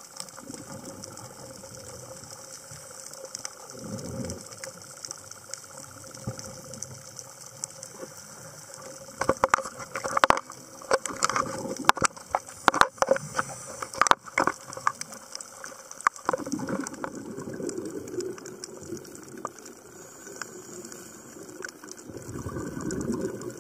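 Underwater sound picked up by a diver's camera housing: a steady hiss with a few bursts of scuba exhaust bubbles. About nine seconds in comes a cluster of sharp clicks and knocks, lasting several seconds, as the housing is handled and swung about.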